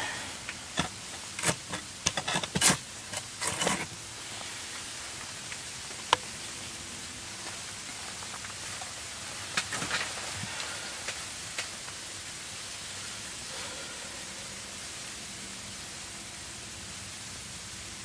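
Steady hiss throughout. In the first four seconds there is a cluster of short rustles and clicks of handling, then a single sharp click about six seconds in and a few more rustles around ten seconds in.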